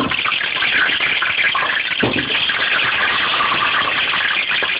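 Loud, steady sizzle of hot oil in a stainless steel stockpot as whole peeled baby onions go in to flash fry on high heat, with a knock at the start and another about two seconds in as onions drop into the pot.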